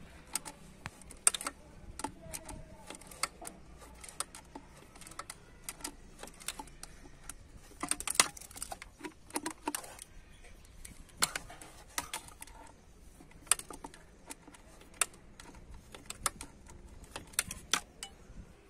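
Irregular light clicks and taps, several a second at times, of a hand tool against plastic and metal parts in an engine bay, as a stuck part beside the thermostat housing is worked loose.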